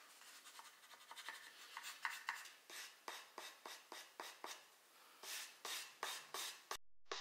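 Hand sanding of a small faceted wooden piece with sandpaper wrapped around a wooden block: quick back-and-forth rasping strokes, about three a second, cutting off suddenly near the end.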